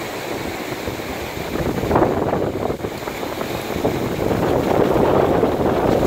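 Wind buffeting the phone's microphone over the wash of ocean surf on a sandy beach, growing louder in the second half.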